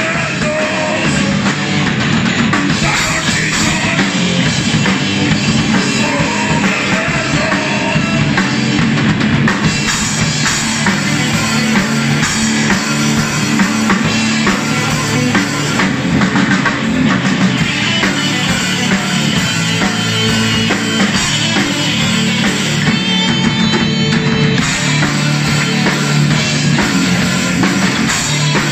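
Rock band playing loud and continuously: two electric guitars, an electric bass and a drum kit with cymbals.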